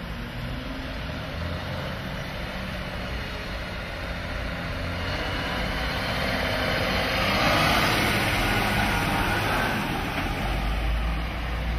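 Garbage truck with a Zoeller Medium XL refuse body running with a steady low engine rumble. A broad mechanical noise builds past the middle, is loudest about two-thirds of the way through, then eases.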